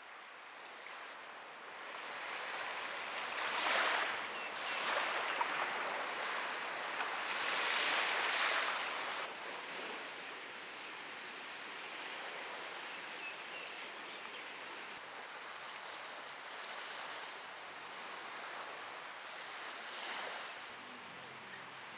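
Sea surf washing onto a beach: a steady hiss of breaking waves, with louder swells about four and eight seconds in and again near the end.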